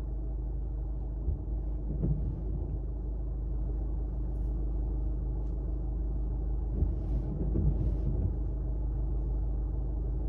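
Steady low electrical hum, with a few faint knocks and handling sounds about a second in and again around seven seconds in.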